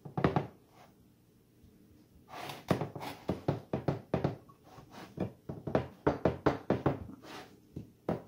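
A glass baking dish knocking on the countertop as hands press a graham-cracker crumb mixture into it: a short cluster of dull knocks at the start, then, from about two seconds in, a run of knocks roughly two or three a second.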